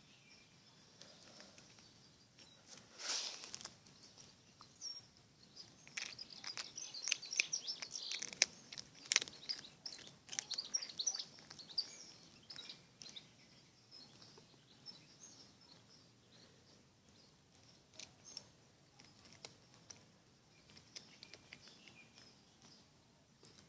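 Small birds chirping in the background. Over them comes a run of sharp crackles and clicks, loudest from about six to eleven seconds in.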